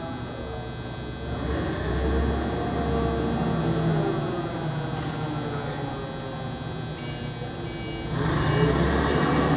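Forklift engine running and revving as it drives under load. It swells louder about a second and a half in and again near the end.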